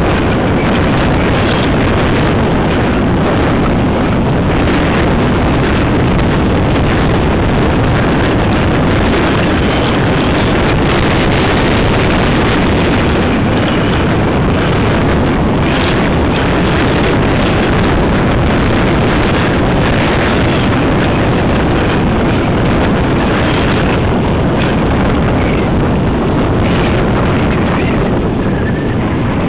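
Loud, steady wind noise buffeting a helmet camera's microphone as a mountain bike descends a rough, stony track, with the bike rattling and knocking over the bumps.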